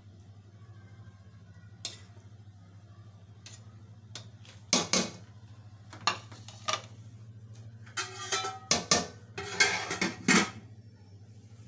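Metal serving spoon scraping and knocking against an aluminium cooking pot while rice is served out onto a plate: a run of clattering strikes in the second half, busiest near the end.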